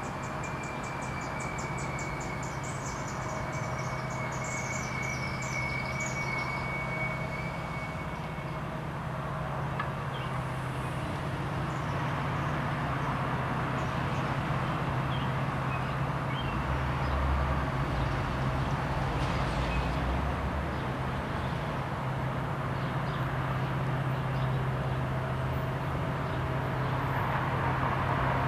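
EMD SD70ACe diesel locomotive leading a local freight, its engine a steady low rumble that grows gradually louder as the train approaches. Birds chirp over it in the first few seconds.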